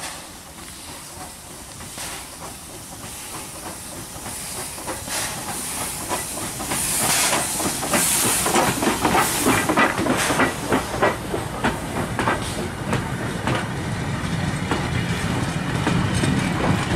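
Steam locomotive approaching and passing close, its chuffing and steam hiss growing steadily louder. Near the end, the rumble and clatter of two-axle freight wagons rolling by take over.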